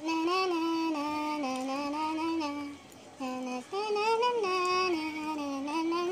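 A young woman singing a song's melody without its lyrics, in held notes that step up and down, with a short break about three seconds in.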